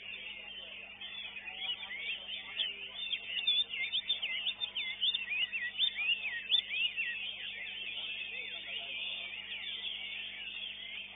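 Caged songbird singing a fast, continuous run of high, twisting warbled notes, busiest and loudest in the middle, over a steady low hum.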